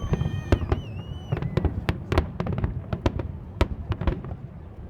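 Fireworks display bursting in rapid, irregular bangs and cracks over a constant low rumble. A high, steady whistling tone sounds over the bangs for about the first second and a half.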